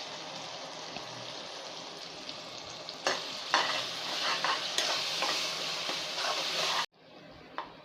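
Onion-tomato masala frying in oil in a kadai, with ginger-garlic paste just added, sizzling as it is stirred. The sizzle grows louder about three seconds in, with scrapes of the stirring spoon, then drops suddenly to a fainter sizzle near the end.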